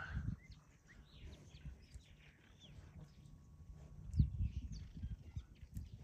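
Wild birds chirping: many short, high, falling calls scattered through, over a low rumble, with a dull thump about four seconds in.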